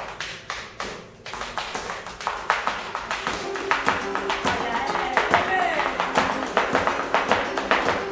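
Flamenco: sharp, rapid heel and toe taps from a dancer's shoes on a wooden floor, mixed with hand-clapping (palmas), and flamenco guitar playing along, filling in more strongly from about three seconds in.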